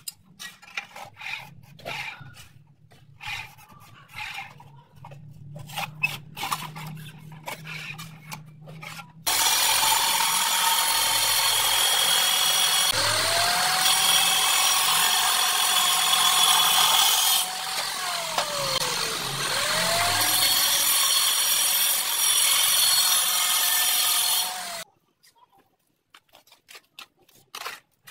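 Electric angle grinder cutting through a ceramic wall tile. It starts about nine seconds in and runs loud and steady for about fifteen seconds, its pitch dropping and rising again once in the later part, then cuts off abruptly. Before it there are scattered clicks and knocks of tile handling.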